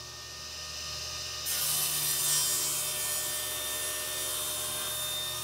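Table saw cutting through a plywood panel. The blade bites into the wood about a second and a half in and the cut goes on steadily.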